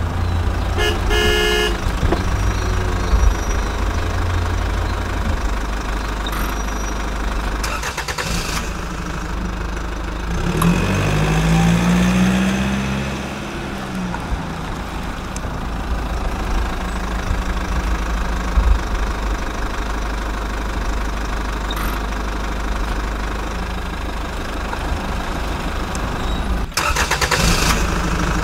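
Heavy truck engine sound, running steadily, with a short horn toot about a second in and a rev that rises and falls in pitch near the middle.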